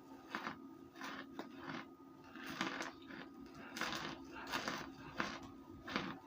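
Chewing crunchy chunks of cooked cornstarch: a series of crisp crunches at about two a second.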